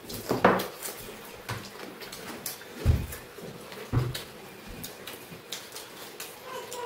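Eating at a table in a small room: scattered light clicks of dishes and cutlery, with two low thumps about three and four seconds in.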